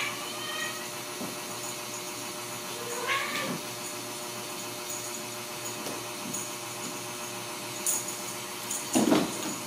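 Ragdoll kittens meowing: one short meow at the start and another about three seconds in, then a louder, lower call near the end, over a steady background hum.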